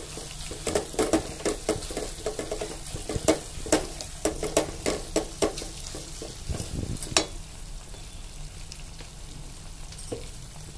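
Sliced onions and ginger-garlic paste sizzling in hot oil in a metal pot, with a wooden spoon stirring and knocking against the pot. The stirring stops after about seven seconds, leaving the steady sizzle.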